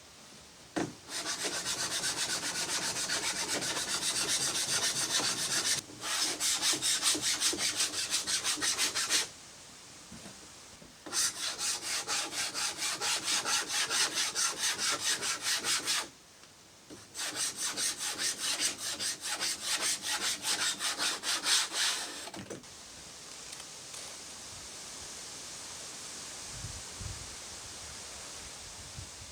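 Fast back-and-forth hand strokes rubbing wood, several strokes a second, in four long runs with short pauses between them, typical of fairing cedar canoe ribs by hand.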